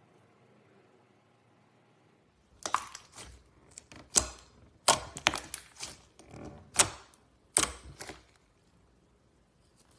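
Slime being pressed and worked by hand, giving a quick run of sharp clicking pops. The pops come in small clusters for about five seconds, starting a couple of seconds in, with quiet before and after.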